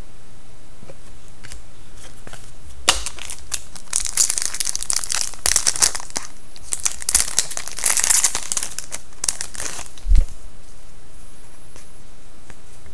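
Foil trading card pack wrapper crinkling and tearing as a pack is opened by hand, in bursts for several seconds, then a single low thump.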